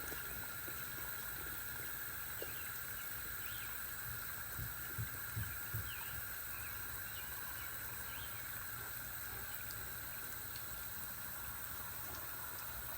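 Steady outdoor background hiss with a few faint, short high chirps, like small birds, and some soft low thumps a little before the middle.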